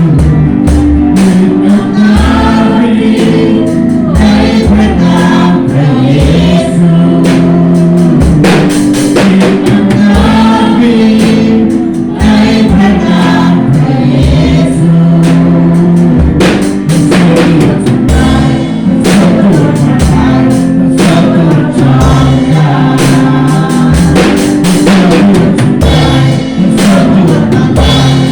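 Live worship music: a band with drum kit and bass drum beating steadily under singing voices.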